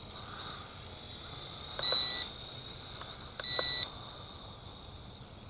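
Two short electronic beeps from a toy quadcopter's handheld transmitter, each about half a second long and spaced about a second and a half apart, over the faint high whine of the JJRC H98 micro drone's small motors.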